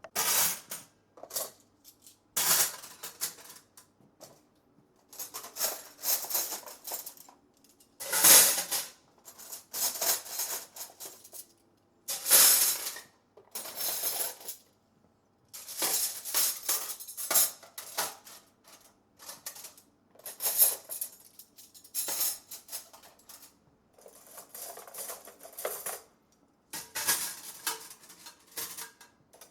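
A dubbed-in sound effect standing in for footsteps: short bursts of metallic clattering, repeated over and over in uneven groups with brief silences between.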